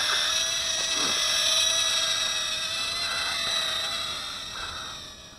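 DHD D3 Mini Reddie caged micro quadcopter in flight, its four small motors and propellers making a steady high-pitched whine of several held tones. The whine fades over the last couple of seconds as the drone drifts away, with its battery nearly flat.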